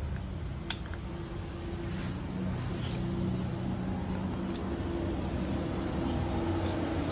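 A steady low mechanical hum, like an engine running, grows slightly louder, with a few light clicks as the plastic connector and valve body are handled.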